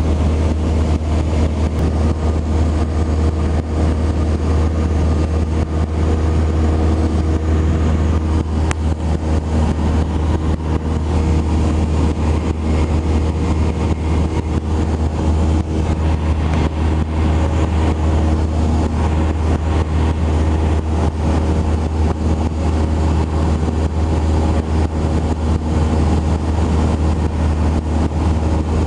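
Cessna 172 Skyhawk's piston engine and propeller droning steadily in flight, heard from inside the cabin: a strong low hum with a few steady tones above it.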